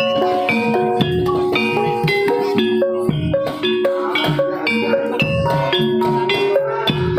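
Javanese gamelan music accompanying a jaran kepang horse dance: metallophones play ringing struck notes over drum strokes.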